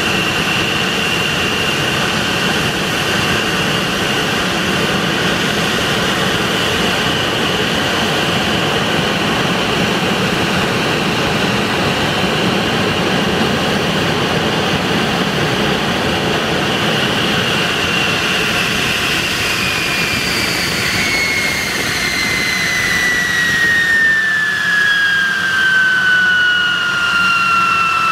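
De Havilland Venom's de Havilland Ghost turbojet running on the ground with a steady high whine over its roar. About two-thirds of the way through, the whine starts falling steadily in pitch as the engine winds down.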